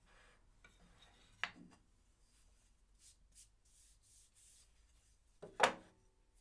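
Faint rubbing and handling sounds, with a sharp tap about a second and a half in and a louder knock near the end.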